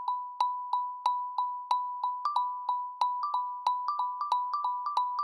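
Google Pixel 4 ringtone in a marimba-like mallet tone: one note repeated about three times a second, with a second, slightly higher note joining about two seconds in and the pattern building.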